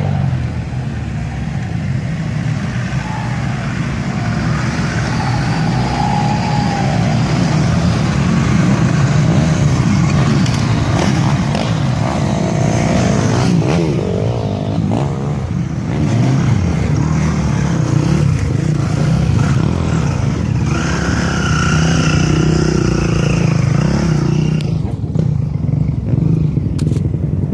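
Off-road 4x4 vehicles driving past one after another, their engines running loud and steady, with the pitch rising and falling as they rev.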